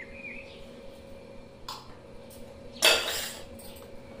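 Stainless-steel kitchenware clinking as salt is spooned from a small steel bowl: a light tap, then a louder metallic clank with a short ring about three seconds in.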